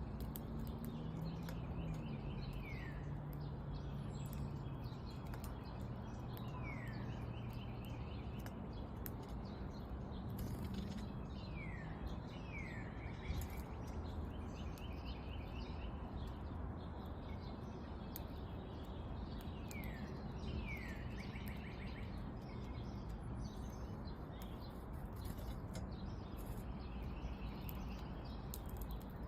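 A small songbird repeating one short song about five times, each a quick trill followed by a falling slurred note, over a steady low background rumble.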